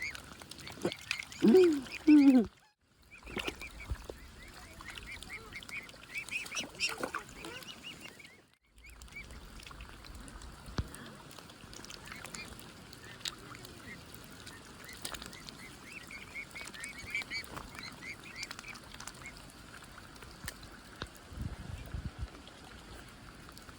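Waterfowl calling: many short, high calls repeated over a faint steady background. A single spoken word comes near the start, and the sound drops out briefly twice.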